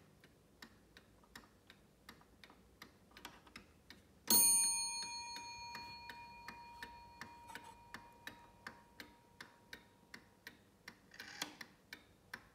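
Antique Welch mantel clock ticking steadily. About four seconds in it strikes once, a single ringing note that fades slowly over several seconds: the half-hour strike, tripped as the minute hand is turned past the six.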